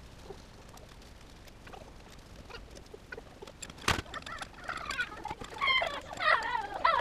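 Sped-up workshop hand work on an engine cylinder head: faint ratchet clicks and tool taps, a sharp metal clink about four seconds in, then high, squeaky, warbling sounds that are the loudest part, in the last few seconds.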